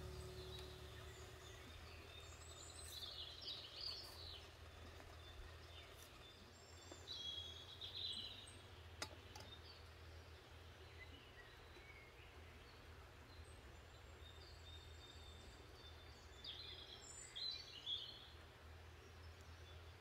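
Quiet woodland ambience with faint bird song in short phrases, heard three or four times; a light click about nine seconds in.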